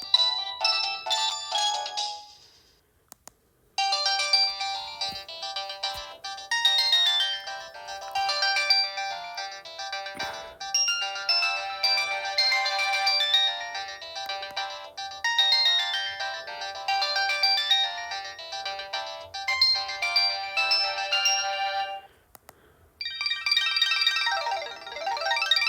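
Samsung GT-E1205T mobile phone playing its built-in electronic ringtone melodies. One tune ends about two seconds in, a bright melody of quick notes runs for about eighteen seconds after a short pause, and near the end a new tune starts with sweeping notes.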